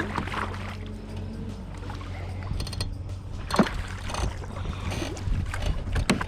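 Sounds of a fishing kayak on the water: scattered knocks and clicks of gear and hull over a steady low hum, with one sharper knock about halfway through.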